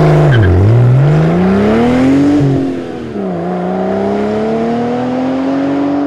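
Car engine accelerating hard: the revs climb, drop sharply at a gear change about two and a half seconds in, then climb again more slowly in the next gear.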